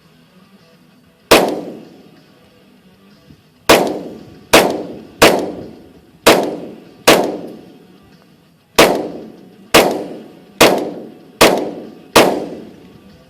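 Glock 23 pistol in .40 S&W firing eleven shots at an uneven pace. The first is alone, then the rest come in quick strings less than a second apart, each shot trailing off over about a second.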